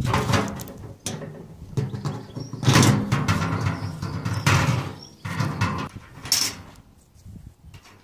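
Sheet-metal tumble dryer drum being handled: a run of irregular scraping and knocking noises, the loudest about three seconds in and again near five seconds, with a short sharp one past six seconds.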